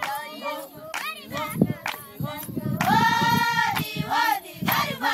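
Samburu women singing a welcoming song in a group, with hand clapping. About three seconds in, one high voice holds a long steady note for about a second.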